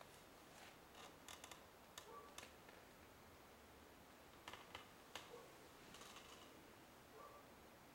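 Near silence: faint room tone with scattered small clicks and ticks, a few at a time.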